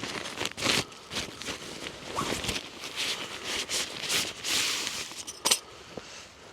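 Irregular rustling and crunching as a tent is pitched on frozen ground: footsteps and handling of the tent and its fabric, with a sharp snap about five and a half seconds in.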